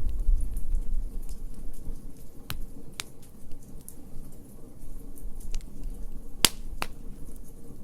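Wood fire crackling: sharp pops at irregular intervals over a low rumble of flames, with one loudest pop followed closely by another a little over halfway through.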